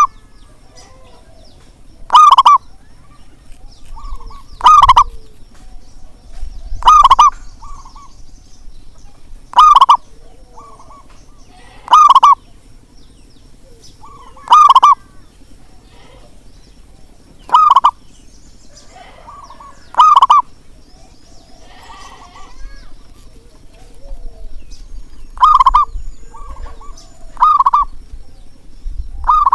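Zebra doves (perkutut) calling: a short, loud coo repeated about every two to three seconds, with softer notes between the loud ones.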